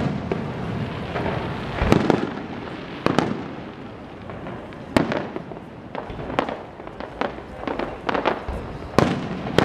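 Aerial firework shells bursting overhead in an uneven string of sharp bangs, about eight of them, some trailing off in a short echo. The loudest come right at the start and about nine seconds in.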